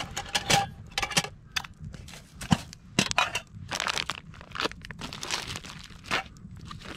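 Plastic food packets crinkling and rustling, with small clinks of a metal cook pot and its lid, as food is unpacked from inside the pot in a string of short, irregular handling sounds.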